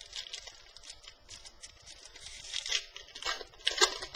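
Trading cards and their packaging being handled: a run of short papery rustles and scrapes, louder in a cluster about two and a half seconds in and loudest just before the end.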